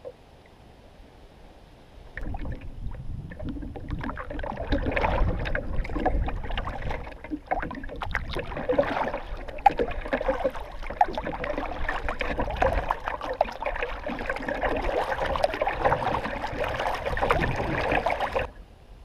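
Kayak paddle splashing through the water stroke after stroke, starting about two seconds in and cutting off suddenly near the end.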